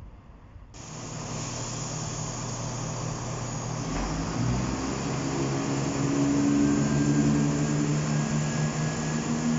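East Midlands Railway Class 170 Turbostar diesel multiple unit pulling out of the platform, its underfloor diesel engines running with a steady drone that grows louder as it accelerates. The sound starts abruptly under a second in.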